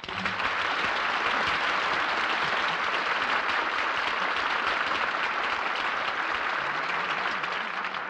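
Studio audience applauding at the end of a musical number: a dense, steady clapping that cuts in sharply and eases slightly near the end.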